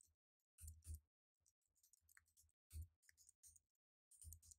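Faint computer keyboard typing: irregular short runs of key clicks, each with a soft thud.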